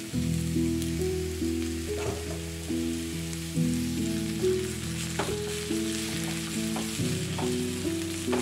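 Sliced carrots and onions sizzling in coconut oil in a frying pan as more oil is poured in, with a wooden spatula knocking and scraping as it stirs them. Background music with a simple melody plays throughout.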